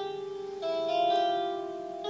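Sustained, overlapping musical notes from a homemade light-sensor instrument, played through a small loudspeaker as a hand shades the sensors in the wooden board. The notes waver slightly early on, then a new, louder pair of notes comes in a little over half a second in.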